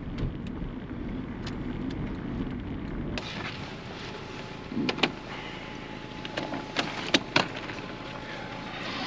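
Steady engine and road noise inside a moving car. About three seconds in this gives way to a quieter open-air background with several sharp knocks and clunks as luggage is lifted out of a car's boot.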